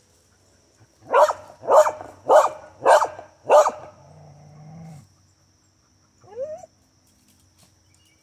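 A dog barks five times in a steady rhythm, about one bark every half second or so, at a chipmunk holed up under a tree while another dog digs at the burrow. After the barks comes a low growl, and a short rising whine follows near the end.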